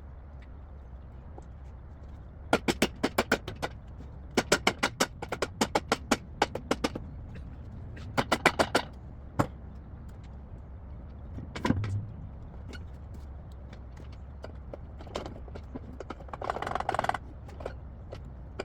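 Hand ratchet wrench clicking in short bursts, about seven clicks a second, while loosening bolts on a Mazda Renesis rotary engine. It is followed by a single metal knock about twelve seconds in and a brief rattle of tools near the end.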